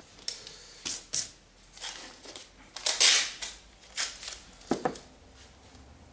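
Masking tape being pulled off its roll and torn: a series of short rasping rips about a second apart, the longest about three seconds in.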